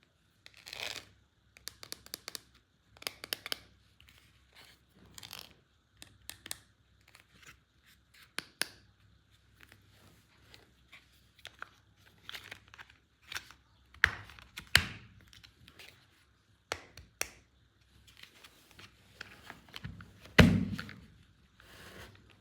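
Hands unboxing a plastic toy playset and its packaging: irregular clicks, knocks and handling noises. Near the end comes a heavier thump, the loudest sound.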